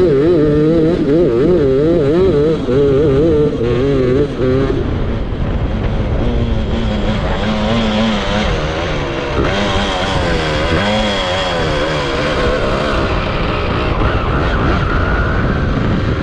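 Onboard sound of a grass-track racing kart's small engine running hard. Its pitch wobbles rapidly as the kart bounces over rough grass, then drops lower about five seconds in as the kart slows, with rushing noise over it.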